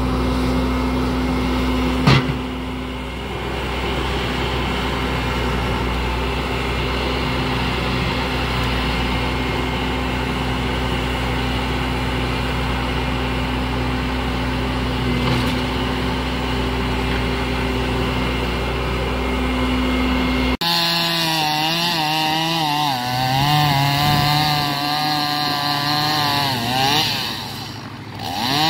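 Bobcat skid-steer loader's diesel engine running steadily, with a single loud bang about two seconds in. About twenty seconds in it gives way to a chainsaw revving up and down as it cuts into a standing tree trunk.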